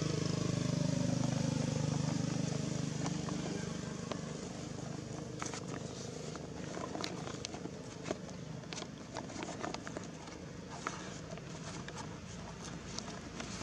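A motor engine hums in the background for the first few seconds and fades away. After that, scattered sharp crackles and rustles of dry leaf litter come as the macaques shift and an infant walks across the leaves.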